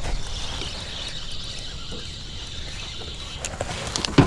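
Spinning reel being cranked to bring in a hooked bass, a steady whir that stops about three and a half seconds in, over wind rumble on the microphone; a sharp knock near the end.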